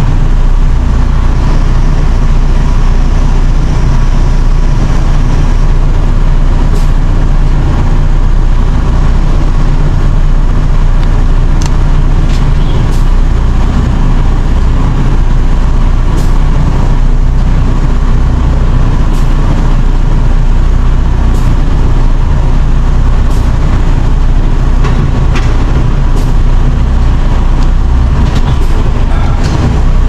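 Mercedes-Benz Actros SLT heavy-haul truck's diesel engine running steadily, heard from inside the cab, with a few light irregular clicks.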